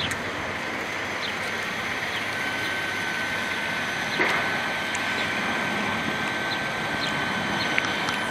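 Steady motor-vehicle noise, with a thin, high, steady whine joining it a couple of seconds in.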